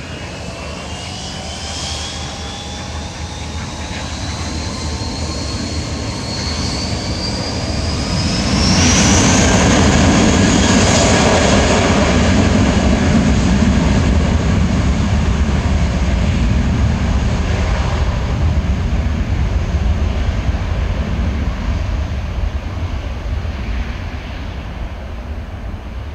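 Airbus A320-232's twin IAE V2500 turbofans spooling up for takeoff: a whine that climbs steadily in pitch, then a sudden jump to a loud jet roar about eight seconds in as takeoff thrust comes on. The roar fades slowly as the airliner accelerates down the runway away from the listener.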